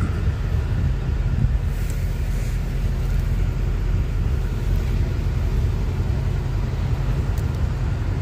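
Motor vehicle engine running steadily, a low drone with road rumble, heard from on board or close by.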